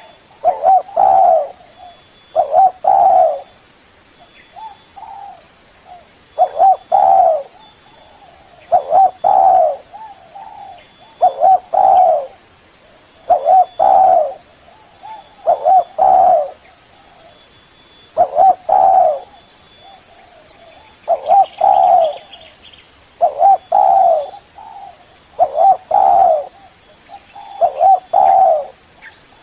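Spotted dove cooing: phrases of two or three low coos, repeated about every two seconds.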